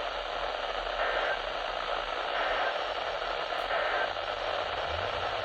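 Steady hiss of radio static on a weak, distant weather-radio signal, the warning broadcast's voice faded out under the noise.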